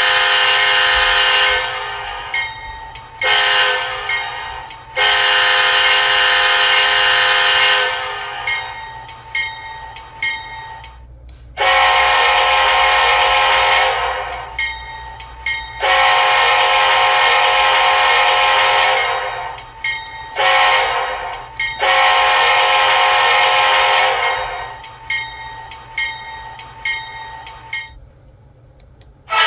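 Nathan K5LLA five-chime locomotive air horn sounding blasts. First comes the end of one sequence (long, short, long). After a pause comes a full grade-crossing signal of long, long, short, long, each blast trailing off after it cuts.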